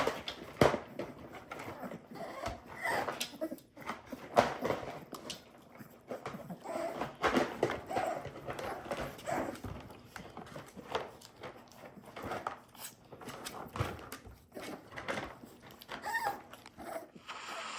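American Bully puppies whimpering and yipping, with scuffling and sharp knocks throughout.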